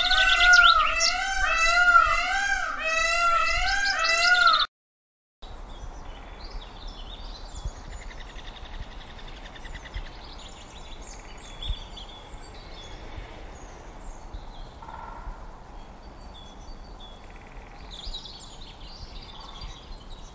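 Peacock calling loudly in a rapid series of short, rising-and-falling nasal calls, about two a second, that stops abruptly about four and a half seconds in. After a brief silence, small birds chirp faintly and sparsely over quiet outdoor ambience.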